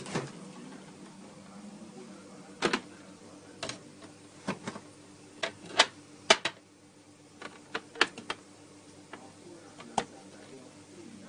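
Hot oil spitting and popping around meatballs shallow-frying in a non-stick pan: a dozen or so sharp, irregular pops, loudest around the middle, over a low steady hum.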